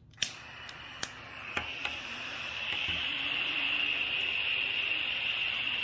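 Handheld butane soldering torch being lit: a sharp click just after the start and a couple of lighter clicks, then a steady hiss of burning gas that builds over the first two seconds or so and holds.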